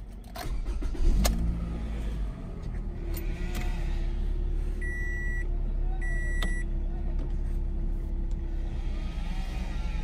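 2014 Toyota RAV4 engine cranking and catching about a second in, then idling steadily. A dashboard chime beeps twice, at about five and six seconds in.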